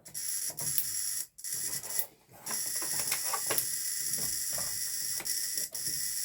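Tefra N 53 violet-ray high-frequency device switched on: its hammer interrupter chatters on and off for a couple of seconds, then settles into a steady buzz with a high electrical hiss and scattered crackling clicks. The hammer sounds good.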